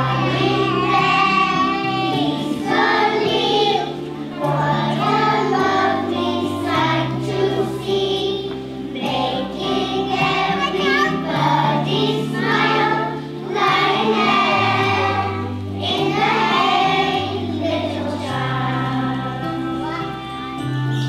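A children's choir singing a song in unison, with instrumental accompaniment holding low notes beneath the voices.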